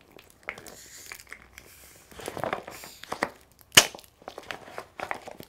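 HydraPak SF750 soft flask squeezed and collapsed by hand as air is pressed out of it: thin flexible plastic crinkling with scattered clicks, and one sharp click a little under four seconds in.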